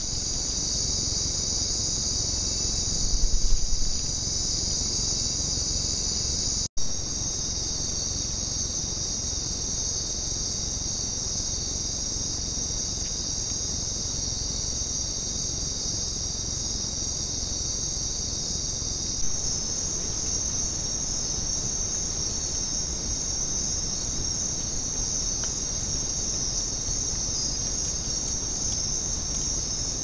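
Night chorus of rainforest insects: a steady, high-pitched trilling that continues through several clip changes. A few low thuds sound close to the microphone about three seconds in.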